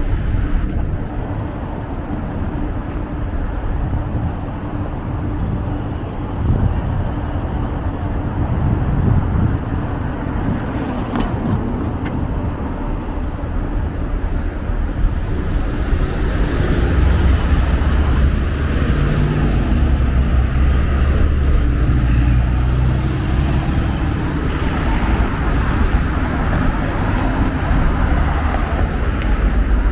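City road traffic: cars and buses driving past, a steady hum of engines and tyres that grows louder about halfway through.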